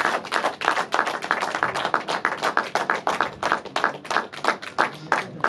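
A group of people clapping: a dense, uneven run of hand claps.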